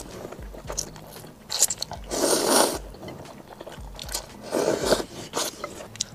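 Close-miked slurping of instant noodles in broth, two long slurps about two seconds in and again near five seconds, with wet chewing and small mouth clicks between.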